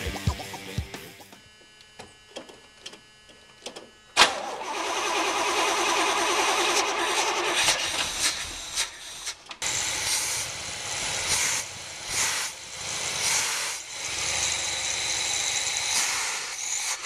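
The 1979 Chevrolet Malibu's engine, fed by a four-barrel Quadrajet carburetor, starts suddenly about four seconds in and then runs, its level rising and falling as it is given gas. The engine runs terribly and bogs when given even slight throttle, the fault the owner sets out to cure by rebuilding the carburetor.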